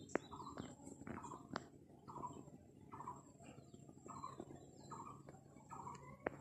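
A bird calling over and over, short falling notes a little under a second apart, with a few sharp clicks.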